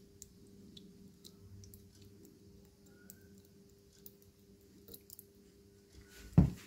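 Faint scattered clicks and scratches from fingers prying at the plastic housing and internals of a small wireless earbud, with one loud thump about six seconds in.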